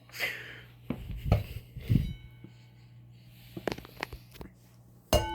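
Knocks and clatter of handling, then near the end a metal fire-alarm bell gong is struck once and rings on.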